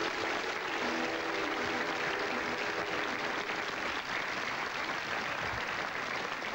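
Studio audience applauding, a dense steady clapping, with the tail of a music cue underneath that fades out about halfway through.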